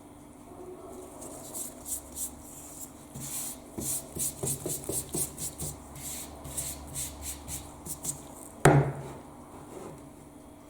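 Hand scraping or rubbing strokes on parts of an old doorbell during restoration, about three quick strokes a second. Near the end comes one sharp knock, the loudest sound, with a short low ring.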